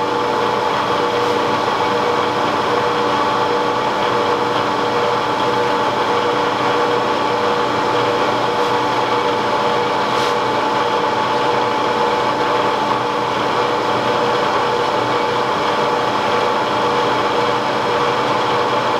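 Milling machine spindle motor running steadily off an inverter (variable-frequency drive): an even hum carrying a steady high whine.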